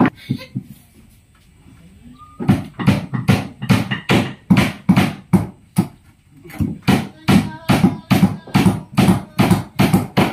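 Steady hammer blows on the wooden hull of a paddle racing boat under repair, about three blows a second, pausing briefly near the start and again around the middle.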